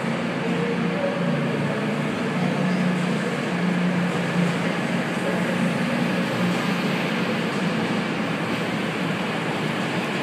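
Train running noise heard from on board as it moves slowly through a station: a steady rumble of wheels on the rails with a low hum that swells slightly a few seconds in.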